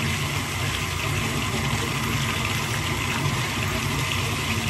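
Water running steadily in a bathtub, a constant rush with a low hum underneath.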